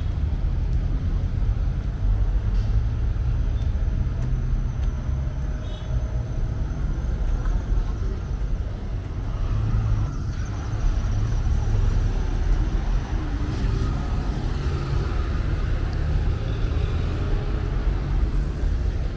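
Road traffic: cars driving past on a busy multi-lane city road, a steady low rumble of engines and tyres.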